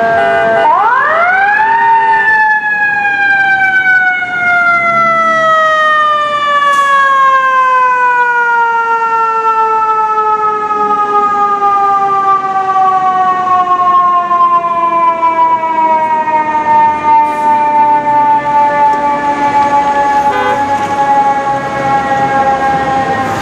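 Fire truck siren winding up sharply over about a second and a half, then slowly coasting down in pitch for the next twenty seconds, in the way a mechanical siren's rotor runs down. It sounds while the ladder truck drives past.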